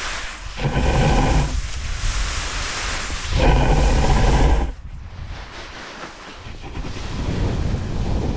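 Wind buffeting the camera microphone while skis carve and scrape through spring snow, with two louder spells of rasping ski-on-snow noise during turns, about a second in and again about three and a half seconds in.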